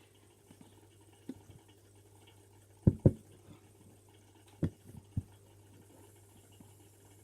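Slime being squished and pressed by hand, giving a few short, wet squelching pops: two close together about three seconds in and two more near five seconds.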